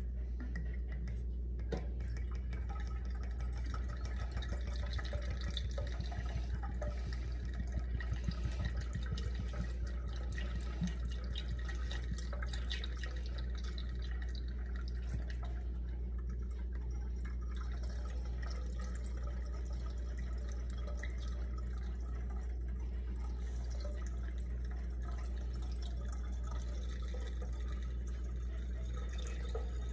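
Liquor trickling from a glass bottle through a plastic funnel into a small oak barrel, a steady pour with drips, a little busier in the first half. A steady low hum runs underneath.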